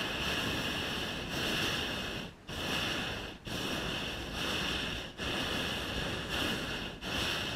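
Hot air balloon's propane burner firing: a loud, even hiss-roar broken by four split-second gaps as the blast valve is released and reopened, stopping just at the end.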